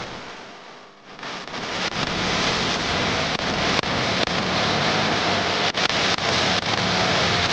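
Steady, noisy din of a crowded training hall full of children moving about on floor mats, with scattered light knocks. It dips briefly at the start and comes back up about a second in.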